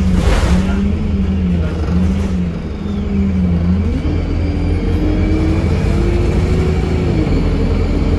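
Cummins ISBe 4.5-litre four-cylinder diesel of an Alexander Dennis Enviro 200 MMC bus running under load, heard from inside the saloon over a heavy low rumble. Its note climbs in pitch about four seconds in and dips a little near the end as the bus accelerates.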